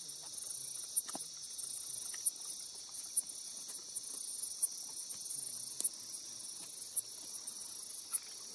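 Steady, high-pitched night chorus of crickets and other insects, with scattered small clicks and knocks through it.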